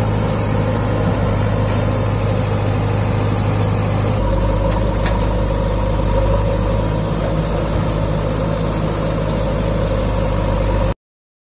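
Diesel engine of a JCB 3DX Super backhoe loader running steadily, its note changing about four seconds in; the sound cuts off abruptly near the end.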